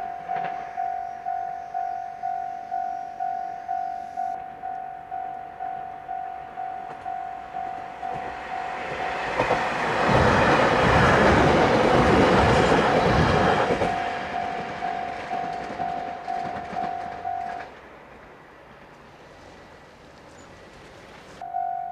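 Japanese level-crossing warning bell ringing in a steady two-strokes-a-second clang while a train rushes past over the crossing for about four seconds with wheel clatter. The bell stops a few seconds after the train clears and starts again near the end.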